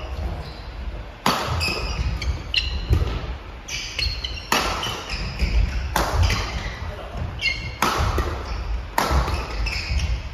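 Badminton racket strikes on a shuttlecock during a doubles rally, sharp smacks about once a second that echo through a large wooden-floored gym. Short high shoe squeaks and footfalls on the court come between the hits.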